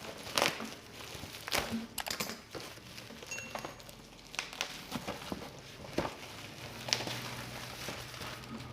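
Parcel packaging being handled and opened by hand: irregular rustling and crinkling with scattered sharp clicks and taps.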